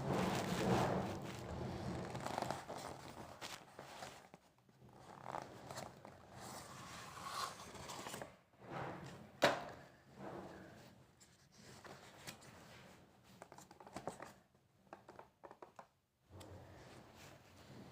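Handling noises: irregular rustling and scraping with scattered clicks, and one sharp click about nine and a half seconds in, louder than the rest.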